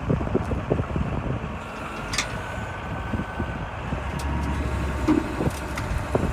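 Diesel engine of heavy earthmoving equipment running steadily with a low rumble. A faint whine sounds for a couple of seconds partway through, and there are a few light knocks.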